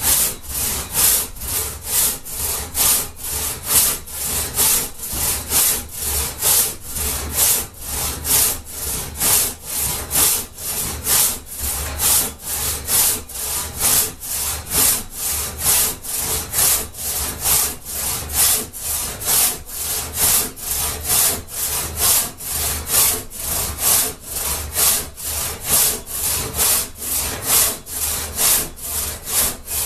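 One-man crosscut saw, freshly sharpened and set, sawing by hand through a dried mulberry log. It cuts in an even rhythm of push and pull strokes, about two a second.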